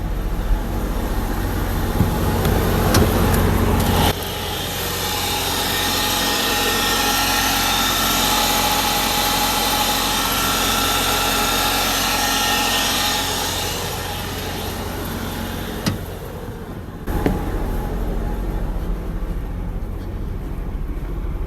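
Diesel RV generator running steadily with a low hum. About four seconds in, the low hum abruptly drops away and a hissing whir with faint steady tones takes over. The whir fades after a single click, and the low generator hum comes back in strongly near the end.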